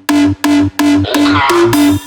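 Electronic dance music with a heavy pulsing beat, about three hits a second over a steady bass note.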